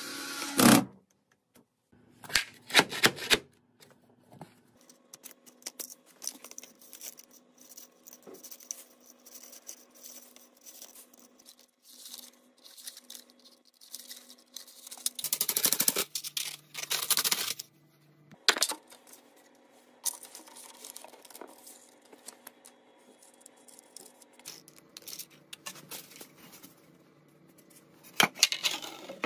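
Handling noises from hand work with tools and materials: several short bursts of scraping and rustling, with faint clicks and a faint steady hum between them.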